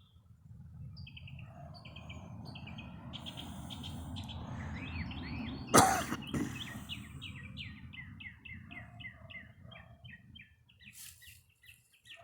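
A songbird singing a long run of quick, repeated chirps, several a second, over a low rumble that swells and then fades. About halfway through there is a single sharp click, the loudest sound.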